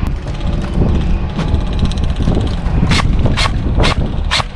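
Wind buffeting the microphone as a steady low rumble, with sharp clicks over it: a few at first, then about two a second from about three seconds in.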